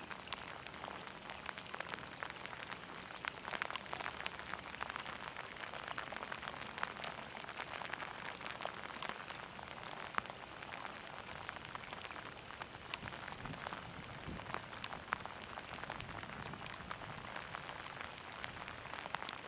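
Steady rain falling on a pond's surface: an even hiss sprinkled with the sharp ticks of single drops landing close by.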